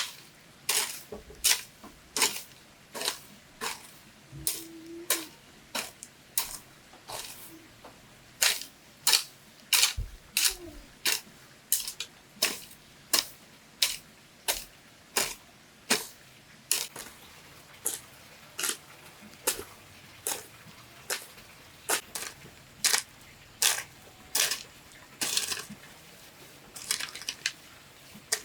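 A steady run of sharp knocks on bamboo, about one and a half a second, as of a tool striking or chopping bamboo.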